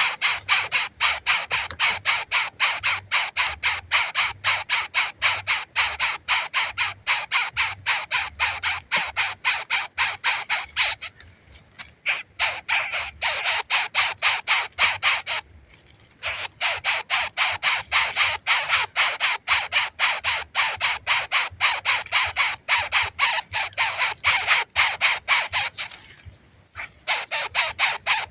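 Hungry baby bird begging for its parent: a rapid, unbroken series of harsh, raspy calls, about four or five a second, stopping briefly three times.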